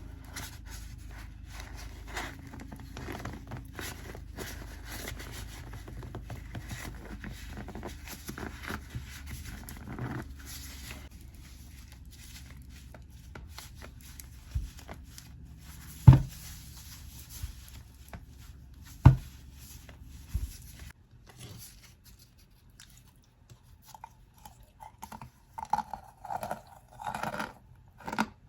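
Packed cornstarch mix being pressed and crunched close to the microphone: a run of fine crackling and scraping, with a few sharp knocks about halfway through. Near the end come louder, separate crunches.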